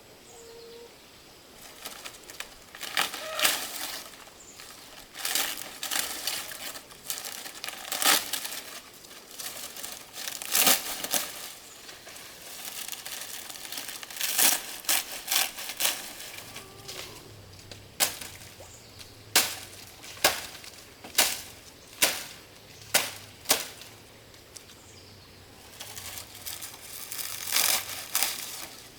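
Leaves or plant material rustling and crinkling, with a run of sharp evenly spaced knocks or chops, about one a second, past the middle.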